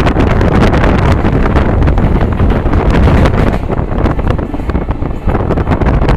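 Wind buffeting the microphone from a moving passenger train, over the steady low rumble of the train running on the track.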